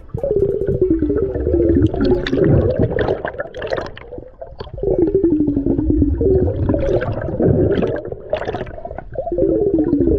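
Scuba diver breathing underwater through a regulator: exhaled bubbles gurgling and rumbling in three long bursts, with short breaks for the inhalations between.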